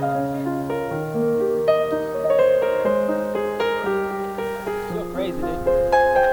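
Background music led by piano, a steady run of held notes that change in pitch every half second or so.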